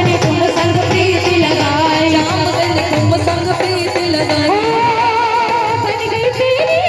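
Devotional bhajan music: a held, wavering melody line over a steady hand-drum rhythm.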